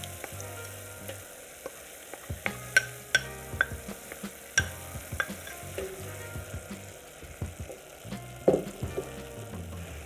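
A wooden spoon scraping and stirring marinara sauce into finely chopped vegetables in a stainless steel pot, with repeated sharp knocks of the spoon against the pot over a light sizzle as the vegetables warm in olive oil.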